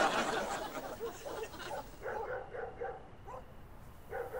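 A pack of dogs barking over and over, faint and distant, many short barks overlapping. A short breathy rush of noise comes at the very start.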